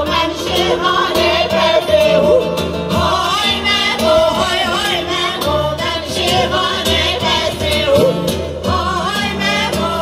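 Live Kurdish folk song: a group of women singing together over a plucked lute and acoustic guitar, with a sustained low bass underneath.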